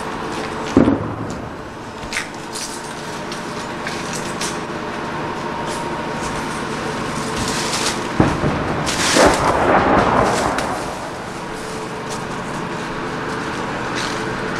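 Artillery shell explosions: one heavy boom about a second in, and another about eight seconds in that swells into a long rumble lasting a couple of seconds, over a steady background hum.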